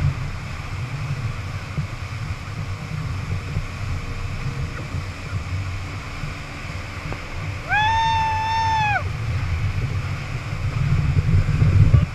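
Motorboat running at speed while towing, with the water of its wake rushing and churning. About eight seconds in a single high, held tone sounds for about a second, bending up at the start and down at the end.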